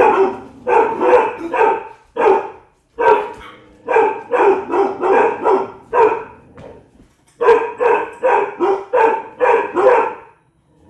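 Cane Corso dogs barking in quick volleys of about three to four barks a second, with short breaks about two and a half seconds and six seconds in.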